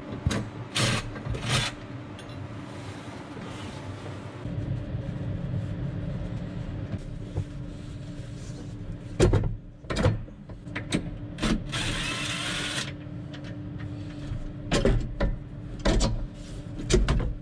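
Knocks, clicks and rattles of monitors, brackets and cables being handled and unmounted inside a tractor cab, over a steady low hum. A brief hiss comes about twelve seconds in.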